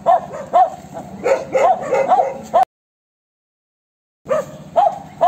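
A dog barking in quick, high yips, about three a second. The yipping cuts out for about a second and a half near the middle, then carries on.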